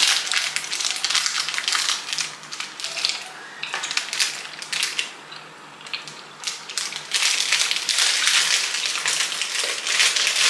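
Close crackling and rustling noise from cookies being eaten and handled, with no speech. Busy for the first few seconds, dropping off about halfway through, then loud again near the end.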